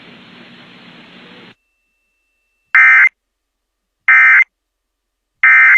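Emergency Alert System end-of-message tones: three identical short bursts of SAME data tones, about 1.3 seconds apart, which signal that the flash flood warning broadcast is over. Faint radio hiss comes before them and cuts off.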